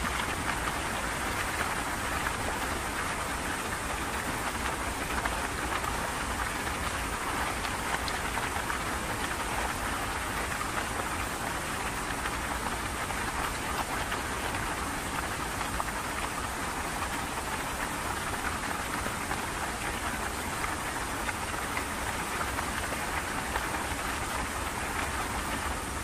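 A flash-flood torrent of muddy water rushing down a street: a dense, even rushing hiss that never lets up.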